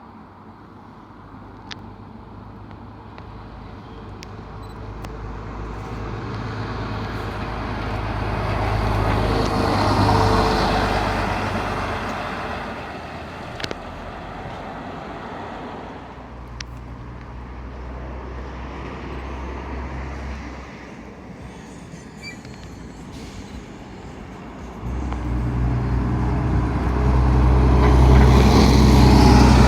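Vintage bus engines running: one grows louder to a peak about ten seconds in and fades, then another engine starts up louder and close from about twenty-five seconds in.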